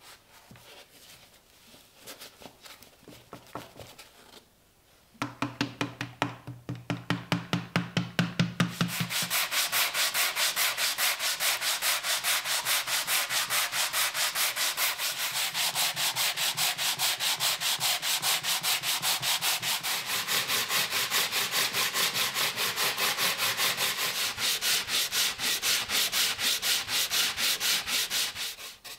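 Wooden board being sanded by hand with a sanding block, in fast, even back-and-forth strokes of sandpaper on wood, about four a second. After a few faint handling ticks, the strokes start about five seconds in and stop just before the end.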